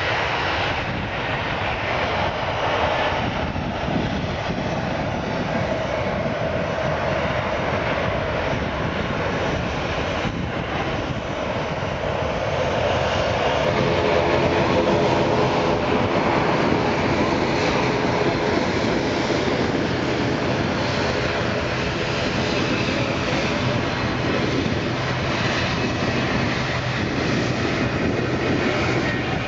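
Jet engines of Airbus narrowbody airliners taking off and moving on the runway: a continuous rushing engine noise with a steady hum under it, which grows louder about halfway through.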